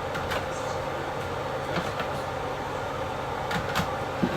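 Light clicks and knocks of dishes and cupboards being handled in a kitchen, about six in all, over a steady background hum.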